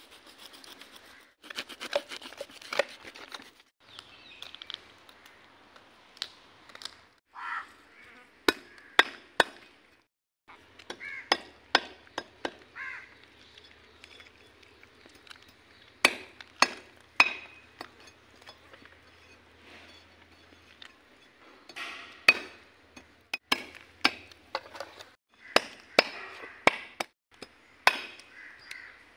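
Kitchen knife scraping scales off a whole pomfret and striking a wooden chopping block, in irregular bursts of scraping broken by sharp knocks.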